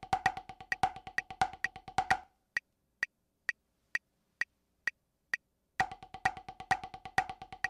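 Drumsticks play alternating-hand 16th notes with accented strokes on a drum practice pad, over a click track at 130 beats a minute. About two seconds in, the sticks stop for about three and a half seconds while the click carries on alone. The sticks come back in near the end.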